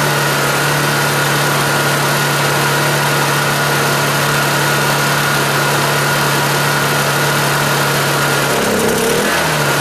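Honda EU2000i inverter generator's small single-cylinder engine running steadily on propane. Near the end its speed sags briefly and then picks back up, while the propane feed is being fine-tuned.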